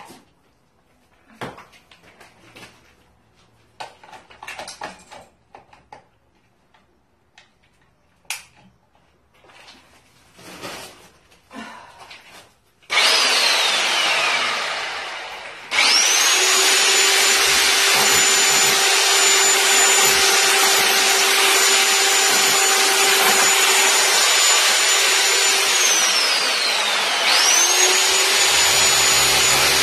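Faint clicks and handling knocks, then an electric hammer drill starts up loud about halfway through, hammering a bit against tile adhesive on a wall, with a high motor whine. It winds down and stops briefly, runs steadily again, then slows near the end and starts again.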